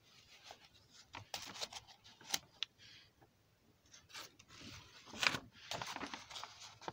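A paper page of a book being turned by hand, rustling and crackling in two bouts with a few sharp clicks, the loudest crackle about five seconds in.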